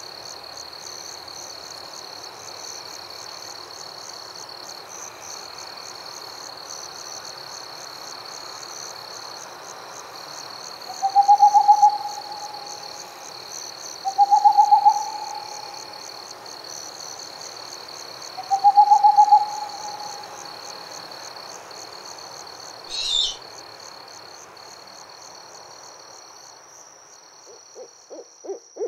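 Owl hooting three times, each hoot about a second long with a slight rise in pitch, over a steady high-pitched pulsing trill. A brief sharp noise comes a few seconds after the last hoot.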